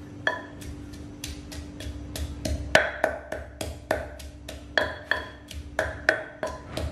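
Wooden pestle pounding coriander root in a clay mortar, with repeated knocks that each carry a short ringing clink. There are about three strikes a second, starting a moment in and getting quicker and harder.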